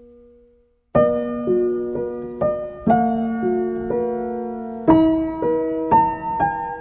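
Background piano music: a held chord dies away, then after a short pause a gentle piano melody starts about a second in, with notes struck about twice a second.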